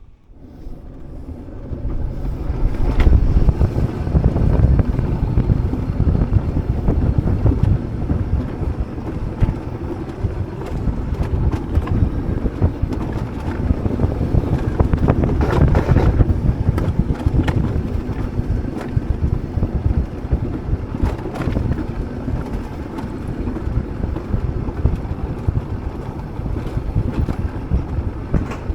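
Alpine coaster sled running down its rails: a steady low rumble from the wheels, with wind buffeting the microphone. It gets louder over the first few seconds and then stays loud.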